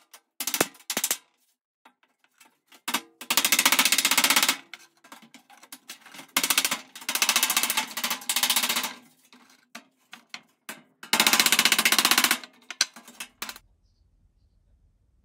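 Sheet-steel repair panel being cut with hand tools: bursts of rapid metallic chattering, each lasting about a second, with single taps between them.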